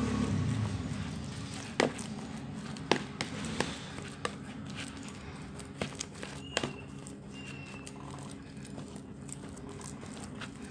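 Metal spoon mashing steamed purple yam in a plastic basin, with soft squashing and irregular sharp clicks as the spoon knocks the basin.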